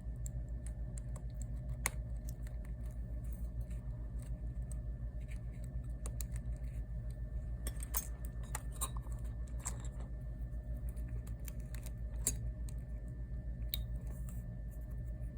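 Scattered light clicks and taps of small metal tools and phone parts being handled, over a steady electrical hum.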